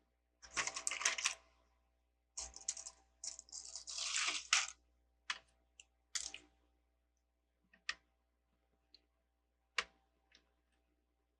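Plastic Lego bricks clattering and clicking as they are handled: two longer stretches of rattling in the first half, then a string of single sharp clicks.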